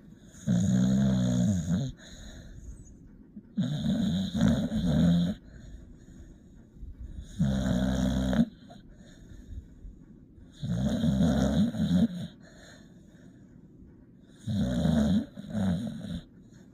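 A sleeping puppy snoring: five loud snores, one about every three and a half seconds, each lasting a second or so, with quiet stretches between them.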